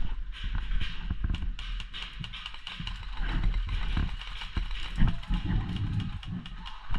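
Irregular light clicks and rustling, the noise of a player's movement and gear, over a steady low rumble.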